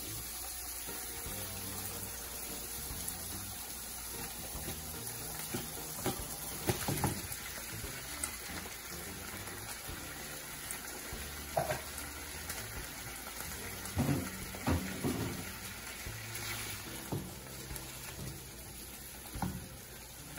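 Onions and bell peppers frying in hot oil in a frying pan with a steady sizzle. A few short knocks and scrapes come as canned jack mackerel in tomato sauce is tipped into the pan and worked with a spoon.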